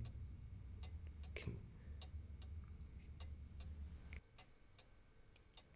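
Clock ticking faintly, roughly two ticks a second, over a low hum that stops about four seconds in.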